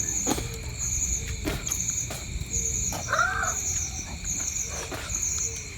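Night-time insects chirping in a regular pulse about twice a second, with one short rising-and-falling animal call about three seconds in and a few sharp clicks.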